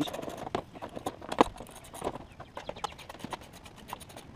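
Ratchet wrench clicking in short irregular runs as a bolt is backed out of the scooter's plastic floorboard cover, with one sharper knock about a second and a half in.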